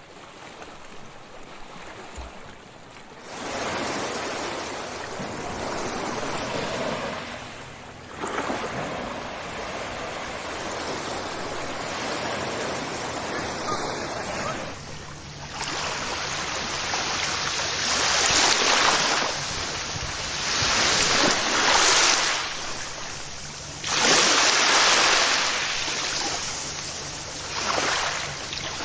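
Sea waves on a shore: a soft wash that grows louder about three seconds in, then a run of waves from about halfway on, each swelling and falling back every few seconds.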